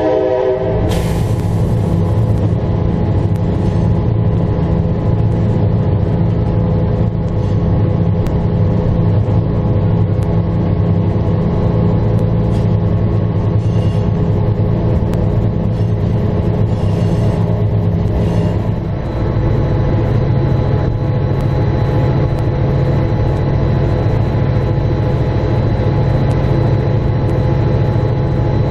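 Diesel locomotive running steadily while rolling along the track, with a deep engine rumble and a few steady tones. The tail of its horn blast, echoing off the gorge walls, dies away about a second in. About two-thirds of the way through the level dips briefly and the engine note shifts lower.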